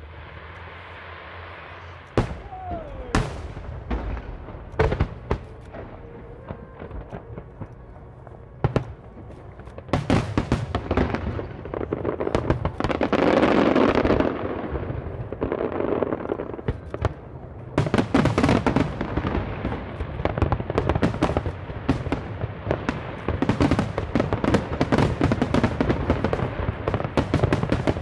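Aerial fireworks bursting: scattered sharp bangs at first, then, from about ten seconds in, a dense run of overlapping bursts and crackling that keeps up and grows busier.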